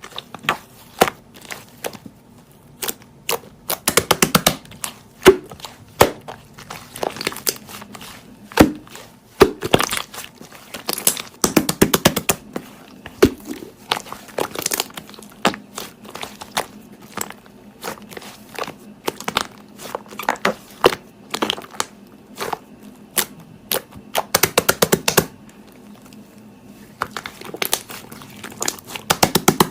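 Slime being squeezed and poked by hand, making irregular crisp clicks and pops, some in quick runs of several.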